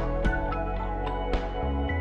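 Instrumental background music: a steady run of short notes over held low notes, with the bass moving to a new note near the end.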